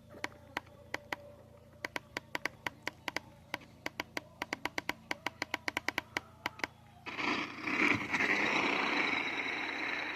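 Sharp clicks at an uneven pace, a few a second, then about seven seconds in a loud steady hiss begins, with a faint high whine running through it.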